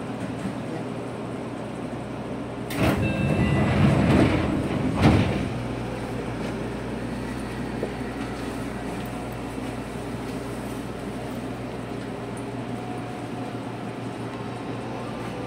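Seibu 2000 series commuter train standing at a platform with a steady low hum; about three seconds in, its sliding passenger doors operate in a rush of noise lasting about two seconds, ending in a sharp thud.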